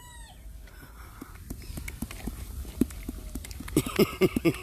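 Horse working its lips and muzzle right against the microphone: scattered clicks and smacks, then a quick run of lip flapping near the end.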